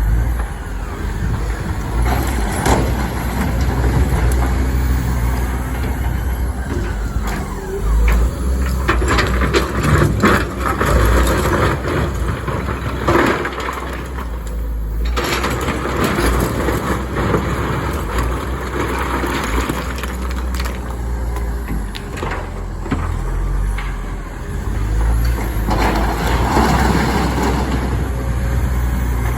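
Komatsu excavator's diesel engine running steadily, with rock clattering and scraping as the bucket digs and dumps. The clatter comes in bursts, heaviest in the middle and again near the end.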